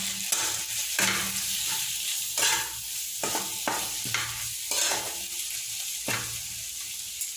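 Onion-tomato masala with freshly added ground spices sizzling in oil in a kadhai, stirred by a metal spoon whose strokes scrape the pan about nine times at an uneven pace.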